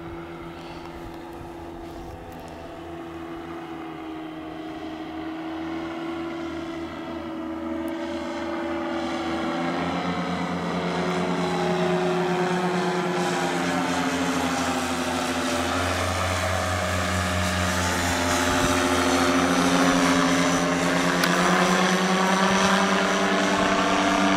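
Powered paraglider trike's small engine and propeller droning in flight, growing steadily louder as it comes back toward and over the listener. The engine note shifts down and up in pitch a few times.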